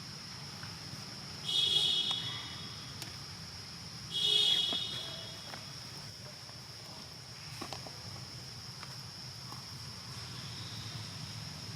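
Baby monkey giving two short, high-pitched calls a couple of seconds apart, over a steady high insect drone.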